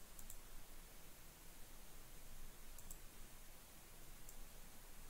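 A few faint computer mouse clicks over quiet room tone: a quick pair near the start, another pair about three seconds in, and one more a little later.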